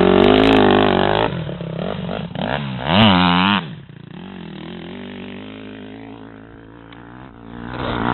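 Dirt bike engine revving hard, with another sharp burst of revs about three seconds in. It then fades as the bike rides off, and grows louder again near the end.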